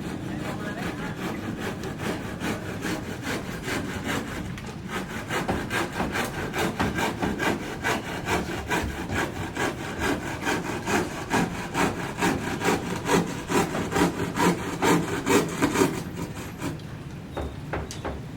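Hand saw cutting wood in steady, quick back-and-forth strokes that grow louder, then stop a couple of seconds before the end.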